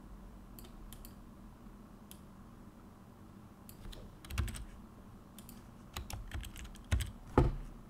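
Typing on a computer keyboard: scattered single key clicks at first, then busier irregular runs of keystrokes in the second half, with a couple of louder strikes near the end.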